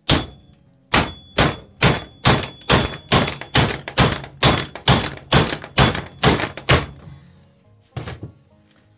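Repeated hammer blows on metal: a single strike, then a steady run of about fourteen strikes at roughly two and a half a second, and one last strike near the end. The blows are driving a stuck wheel bearing out of a motorcycle's rear sprocket carrier.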